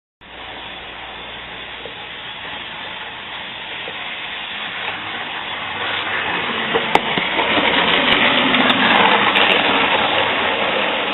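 A model train running on the layout's track: a steady whirring rattle of the small motor and wheels that grows steadily louder, with a few sharp clicks about seven seconds in.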